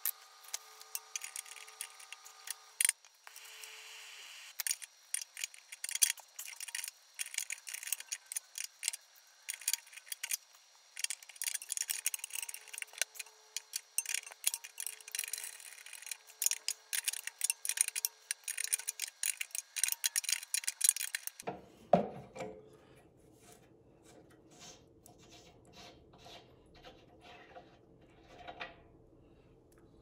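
Pipe wrench and metal compressor fittings clinking, scraping and rattling in a long run of quick, irregular clicks as the wrench is worked onto the pressure-switch manifold. About two-thirds of the way through the sound changes abruptly to sparser, quieter clicks over a low background hum.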